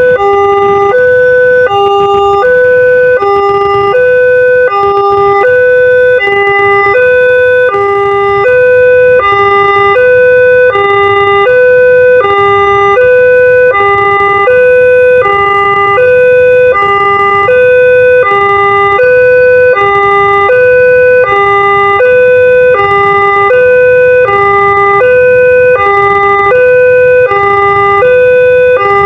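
Railway level-crossing warning siren with a Multec-style two-tone sound, played at a fast rate. It sounds steadily and loudly, alternating between a higher and a lower pitch about once a second.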